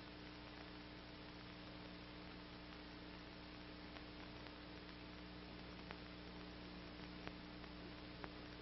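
Near silence: a faint steady hum and hiss from an old film soundtrack, with a few faint clicks.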